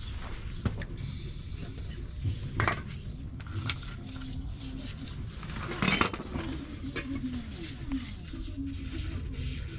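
Steel hand tools clinking and knocking against metal under a car, in a few separate sharp clicks with the loudest about six seconds in, over a steady low background rumble.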